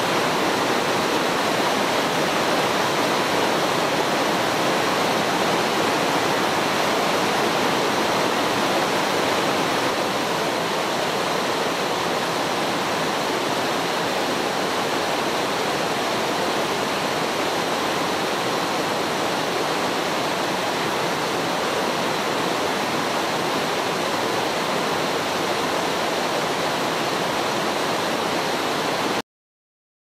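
Mountain stream rushing over rocky cascades: steady white-water noise that cuts off suddenly near the end.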